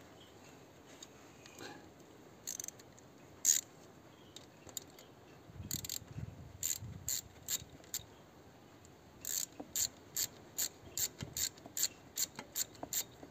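Socket ratchet clicking as a bolt on a diesel tiller engine is turned: a few scattered clicks at first, then from past the middle a steady run of about three or four clicks a second.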